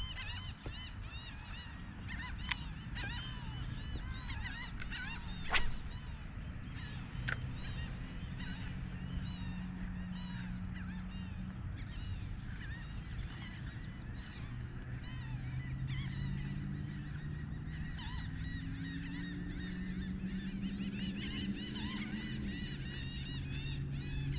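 A flock of birds calling continuously, a dense chorus of short honking calls, over a low droning hum that slowly wavers in pitch. There is a sharp click about five and a half seconds in.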